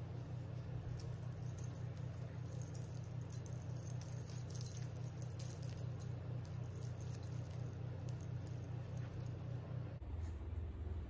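Faint metallic jingling and rustling of necklace chains and bracelets as hands adjust a bikini top, over a steady low hum that drops lower near the end.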